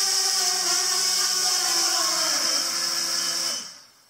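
A small electric motor whirring steadily, then slowing with a falling pitch and stopping about three and a half seconds in.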